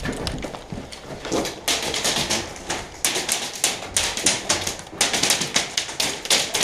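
Airsoft guns firing, rapid sharp shots in quick succession, coming in several runs of a second or so.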